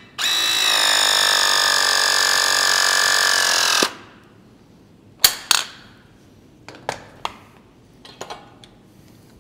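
Battery-powered hydraulic press tool with a MegaPress ring running a full press on a 1-1/2 inch steel pipe fitting: a steady motor whine of about four seconds that cuts off suddenly as the press completes. A few sharp metal clicks and clanks follow as the press ring is taken off the fitting.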